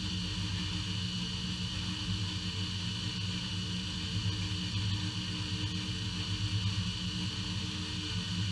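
Small horizontal/vertical metal-cutting bandsaw running steadily, its bimetal blade cutting through bundled 1/2-inch round steel stock. The sound is a steady hum with a higher whine above it.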